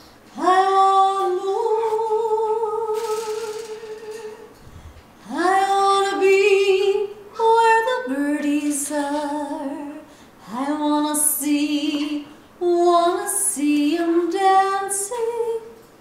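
A woman singing unaccompanied, in about five phrases of long held notes, several of them sliding up into pitch as they begin, with brief pauses between phrases.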